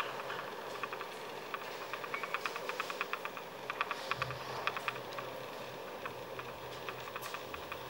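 The last scattered handclaps of fading applause, irregular sharp claps for a few seconds that then thin out. A steady low hum comes in about halfway through.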